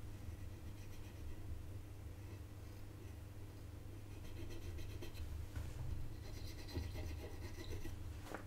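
Faint, light scratching of a soldering iron tip working over a circuit board's pads while old solder and broken ceramic capacitor residue are cleaned off before wicking. The scratching grows busier about halfway through, over a steady low hum.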